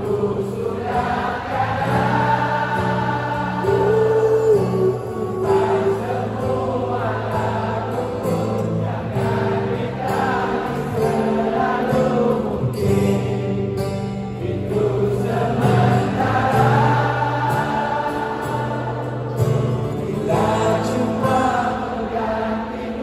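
A live song played on acoustic guitar, with a large crowd singing along together.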